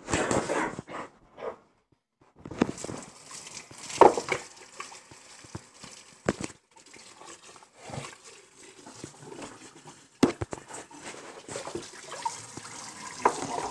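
Water running and splashing in a kitchen sink as a raw turkey is rinsed and turned by hand, with a few sharp knocks against the sink along the way.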